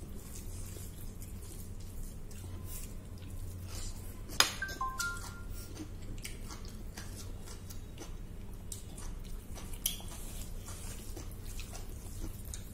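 Eating by hand at a table: soft wet clicks of fingers working rice and curry on plates, and chewing, over a low steady hum. About four seconds in a sharp clack, the loudest sound, is followed by a brief run of four short ringing notes at different pitches.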